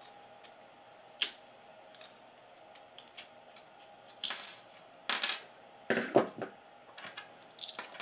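Needle-nose pliers clicking and scraping inside a small plastic thermistor housing while pulling out a cracked ceramic thermistor disc, with its small fragments clinking onto the hard bench. Scattered short clicks, busiest and loudest from about four to six and a half seconds in.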